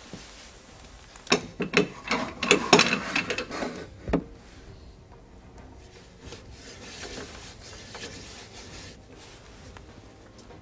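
Square metal stabiliser arms being pushed into the sockets of a rolling equipment case, a quick run of rubbing, rasping and knocks ending in a single knock about four seconds in. A fainter rasping follows as the screw-down feet are handled.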